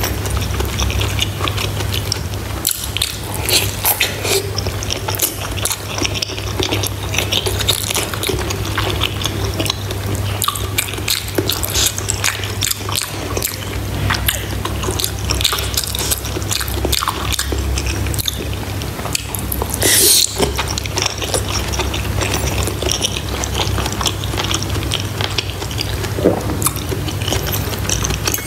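Close-miked chewing and wet mouth sounds of eating soft cooked stuffed bitter melon and soup: many small smacks and clicks, with one louder wet smack about twenty seconds in. A steady low hum runs underneath.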